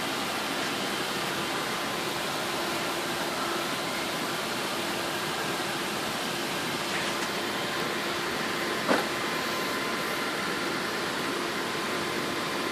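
Steady fan-like rushing noise with a faint hum, and a single click about nine seconds in.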